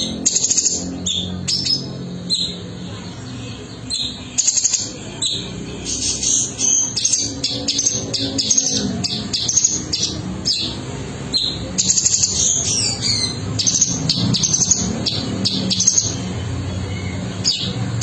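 Orange-bellied leafbird (cungko) singing a long, varied song of rapid chirps, trills and whistled phrases, with music playing faintly underneath.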